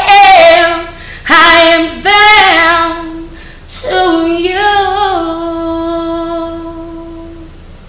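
A woman singing without accompaniment, drawing out the song's final words over a few long, wavering notes. The last note is held steady for about three seconds and then stops shortly before the end.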